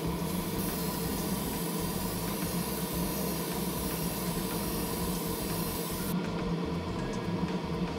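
Steady hiss of paint being sprayed onto a resin garage-kit figure part, over a steady motor hum. The spray stops about six seconds in, leaving the hum running.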